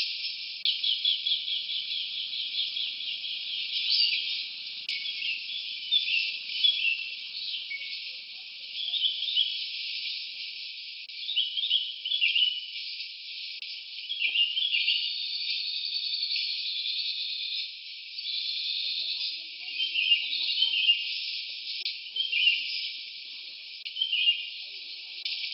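Jungle wildlife ambience: a stream of short, high chirps and trills, with a rapid, even trill lasting about two seconds near the start. The sound is thin, with no low end at all.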